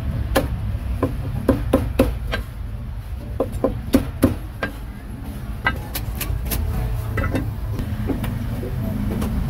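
Cleaver chopping meat on a chopping block: a run of sharp, irregularly spaced strikes over a steady low background rumble.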